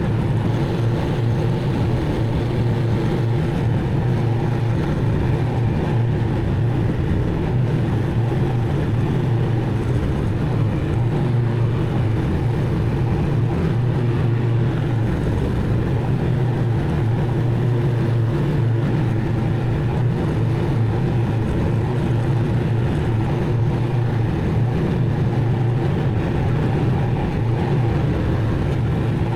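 Zero-turn mower engine running steadily at a constant pitch.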